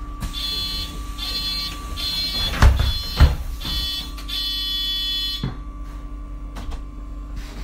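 MAN Lion's City Hybrid city bus front-door warning buzzer beeping repeatedly as the door operates, the last beep held longer, then stopping with a click. Two heavy thumps come in the middle of the beeping, over the bus's steady hum.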